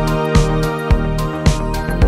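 Intro music: sustained chords over a steady beat, a little under two beats a second.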